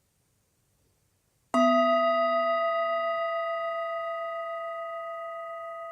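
A meditation bell struck once after about a second and a half of near silence, ringing on with a slow fade and a gentle wavering, marking the close of the guided exercise.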